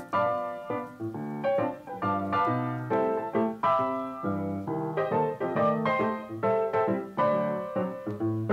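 Background piano music, a gentle solo piano melody of plucked-and-decaying notes.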